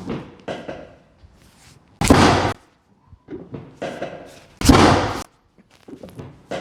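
Chiropractic adjustment thrusts on a treatment table: two loud thuds about two and a half seconds apart.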